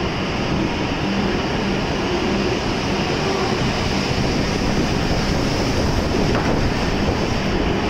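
E7 series Shinkansen train pulling out of the station and running past at low speed: a steady running noise of wheels and bogies with a faint low hum.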